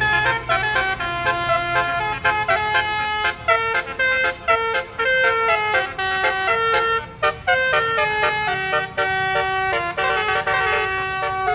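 Tour bus 'telolet basuri' multi-trumpet air horn playing a melody of short held notes, the pitch stepping up and down several times a second, over a low engine rumble.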